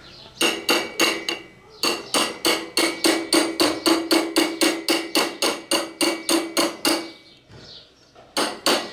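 Rapid metal-on-metal blows with a ringing tone, about three to four a second: a screwdriver being hammered against a Yamaha YB100's flywheel magnet rotor at different spots to knock it loose. The blows pause for about a second near the end, then start again.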